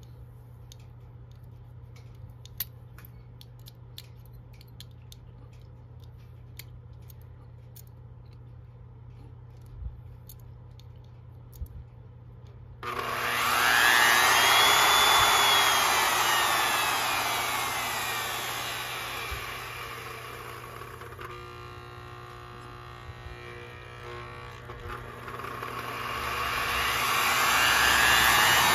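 Faint ticks while the small trim screw on an external SCR speed controller is turned. About 13 seconds in, the Triton TRJ001 router's motor suddenly starts as the screw reaches its start point. The motor speeds up with a rising whine, slows to a low-speed run about two-thirds of the way through, and speeds up again near the end as the controller is adjusted.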